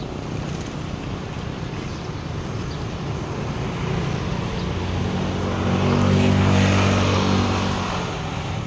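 A motor vehicle drives past: its engine grows louder, is loudest about six to seven seconds in, then fades away, over steady background road noise.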